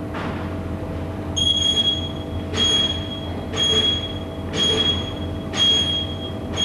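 Steady low electrical hum, then a high electronic beep repeating about once a second, five times, each beep about half a second long. It is a warning signal at a short-circuit test station, sounding in the seconds before a 63 kA fault test on a moulded case circuit breaker.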